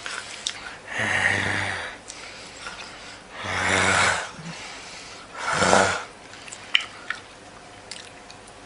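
A man making three loud, noisy throaty breaths, each under a second long and about two seconds apart, followed by two sharp clicks.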